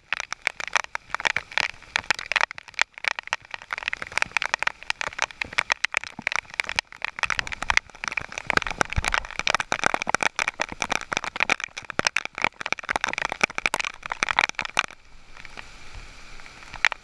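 Heavy rain falling on the sea and on the boat, a dense fast patter of drops striking close by. About fifteen seconds in it turns to a softer, even hiss, heard from under the cockpit roof.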